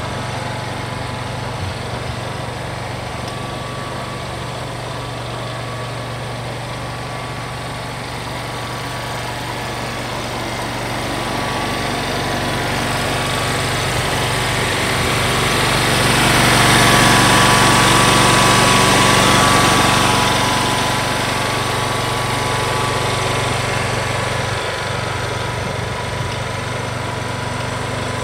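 John Deere Z920A zero-turn mower's engine idling steadily, getting louder for several seconds around the middle.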